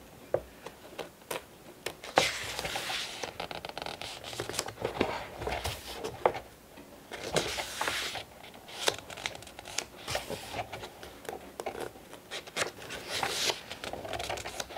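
Magazine pages being handled and turned: paper rustling and swishing in several separate bursts, with small taps and clicks in between.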